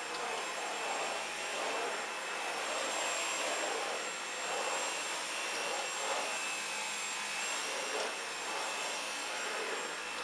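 Dyson V11 cordless stick vacuum running steadily on its eco power setting, a steady airy rush with a high whine from the motor, swelling and dipping gently every second or two.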